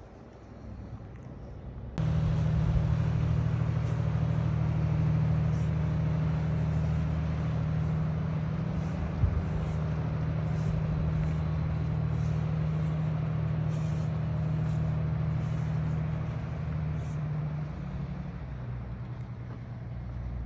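Steady low drone of a passing ferry's engine, the Heisei Iroha Maru, a replica sailing-ship ferry under way. It starts abruptly about two seconds in and fades away near the end.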